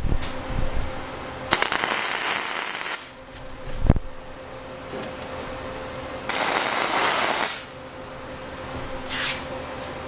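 Wire-feed welder laying two tack welds on a steel jig: a crackling sizzle lasting about a second and a half, then a second one of about a second. A sharp knock comes between the two welds.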